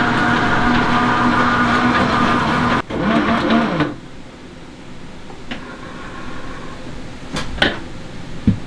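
Large commercial dough mixer's motor running with a steady hum, then switched off about three seconds in, its pitch falling as it winds down. After that, a few sharp knocks as the steel mixing bowl is handled.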